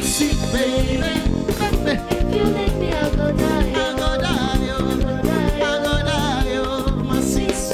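A man singing live into a microphone, accompanied by a live band on keyboard with a steady beat.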